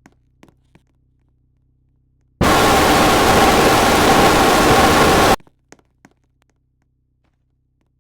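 A loud burst of static-like hiss, about three seconds long, that starts and cuts off abruptly, with a few faint clicks before and after it.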